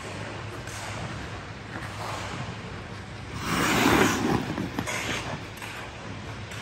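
Hockey skate blades carving and scraping on ice in strides, with a louder, longer scrape about three and a half seconds in.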